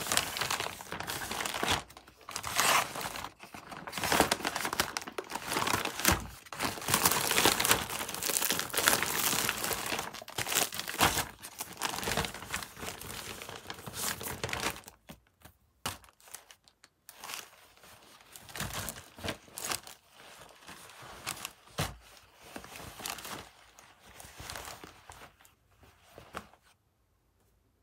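Plastic courier mailer bag crinkling and tearing as it is ripped open by hand and the jeans inside are pulled out. The crinkling is dense and continuous for about the first fifteen seconds, then thins to scattered rustles and dies away near the end.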